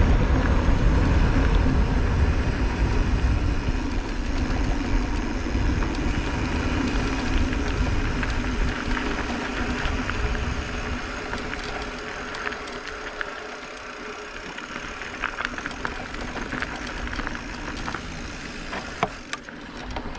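Wind buffeting the camera and dirt-trail tyre noise from an electric mountain bike riding along, with scattered small rattles and crunches. The low rumble eases after about twelve seconds, leaving mostly the lighter clicks and rattles.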